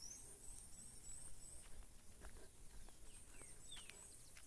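Faint outdoor ambience of birds calling: strings of short, high, rising chirps repeated several times a second, and a couple of lower falling whistles about three and a half seconds in, over a faint low rumble.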